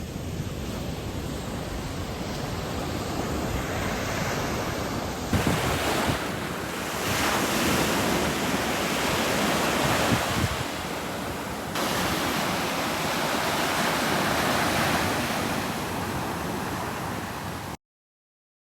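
Ocean waves washing onto the shore: a continuous rushing surf that grows louder about five seconds in. It cuts off suddenly near the end.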